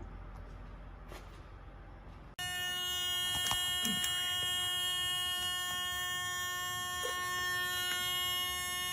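Faint handling noise with a light click, then, about two seconds in, a steady electronic buzzing tone starts abruptly and holds, with a few small clicks over it.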